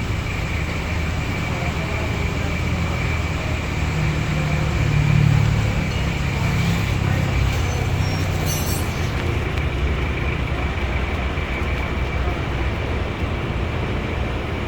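Rebuilt S05D diesel engine running steadily after its overhaul, with a constant high whine over the low engine note; it swells briefly about four to five seconds in.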